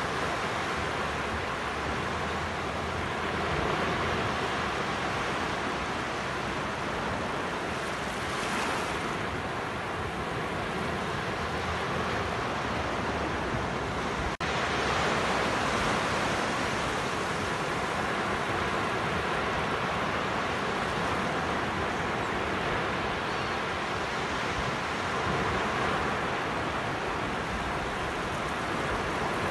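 Sea surf on a sandy beach: low waves breaking and washing up the sand in a steady rushing wash that swells and eases every several seconds.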